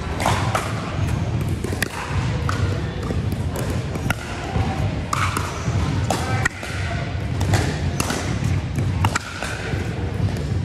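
Pickleball paddles striking the hard plastic ball in a rally: sharp pops at irregular intervals, with more pops from the neighbouring courts, over the steady low din of a busy sports hall.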